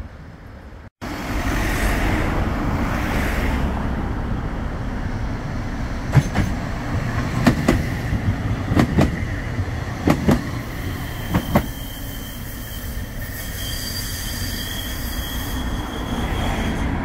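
Bombardier Flexity 2 tram passing close by, its running noise steady, with its wheels knocking sharply over the track several times, often in quick pairs. Near the end a thin high whine rises over the running noise.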